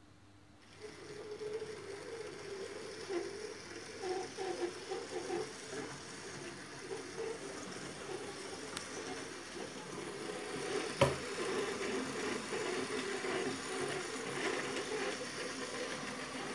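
TT-scale model train running on an analogue layout: the small electric motor buzzes and the wheels rattle along the track, starting up under a second in. One sharp click comes about eleven seconds in.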